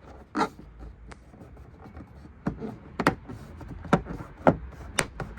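Plastic interior trim piece being pressed and snapped into place on a Hyundai Ioniq Hybrid's trunk lid: about six sharp clicks and knocks as its clips seat.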